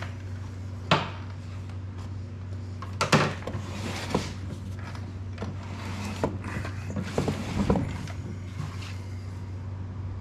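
Hands handling the plastic housing of a Honda EU3000i generator on a workbench: a few sharp knocks and clicks as it is turned and its parts touched, over a steady low hum.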